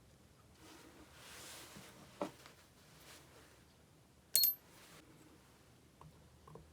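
Small metal chainsaw parts handled during reassembly: a few light clicks and a tap, then one sharp metallic clink that rings briefly about halfway through.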